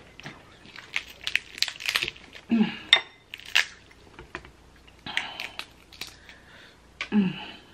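Dungeness crab leg shells being cracked and pulled apart by hand: a run of sharp cracks and snaps, thickest about a second in. There are also a couple of short hums from the eater.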